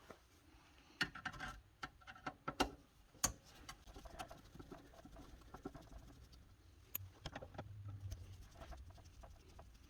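Scattered clicks, taps and light clatter of screws and metal parts being handled while the tape transport of a JVC BR-S611U SVHS deck is taken apart.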